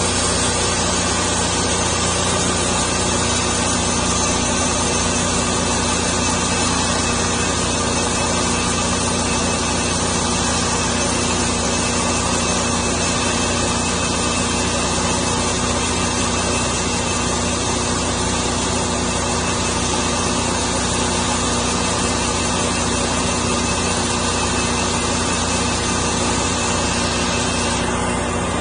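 Homemade sawmill's engine running steadily under load while its blade cuts through a spalted maple log, a steady engine note under a dense hiss. The high hiss drops away just before the end.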